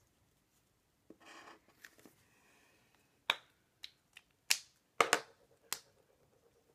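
A highlighter's felt tip swishes briefly across paper about a second in. Then come a run of sharp plastic clicks and snaps, the loudest in the middle: highlighter caps being pushed on and pulled off.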